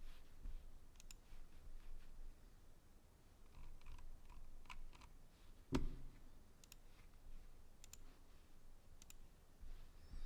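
Sparse, irregular clicks of a computer mouse at a desk, with one louder knock about six seconds in.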